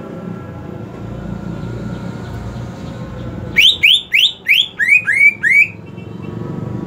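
Green leafbird (cucak ijo) giving a run of seven loud, clear whistled notes about three a second, each sweeping upward. The last three notes are a little lower than the first four.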